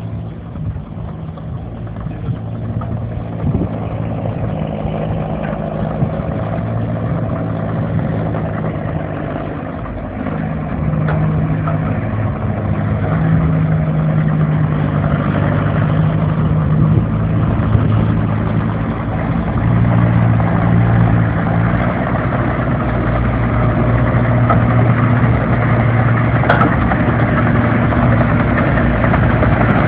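Engine of a TTM-3902GR tracked carrier running during its break-in after repair, steady throughout and growing louder about ten seconds in.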